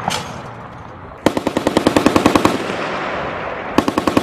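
M2 .50-calibre heavy machine gun firing: a single shot, then a burst of rapid, evenly spaced shots about a second in, lasting just over a second with a rolling echo after it, and a second burst near the end.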